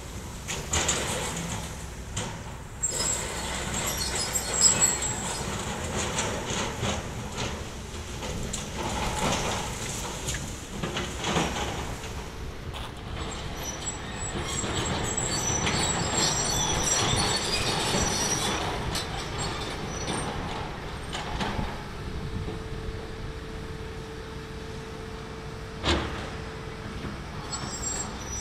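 Demolition excavator at work on a concrete building: steady machine noise with crunching, scraping and clattering debris, and high metallic squeals scattered through. A steady tone sounds for several seconds late on, and a single sharp bang comes near the end.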